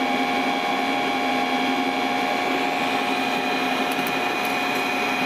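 Motor-generator set, an electric motor driving a generator, running steadily: an even hum with several constant whining tones over a rushing noise.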